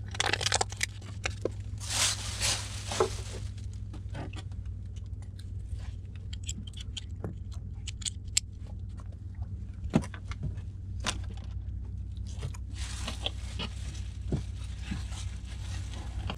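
Scattered clicks and scrapes of things being handled, with a few brief rustling bursts, over a steady low hum.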